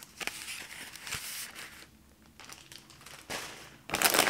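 Packaging being handled in a cardboard shipping box: rustling and crinkling of plastic and wrappers, with a louder burst of crinkling near the end.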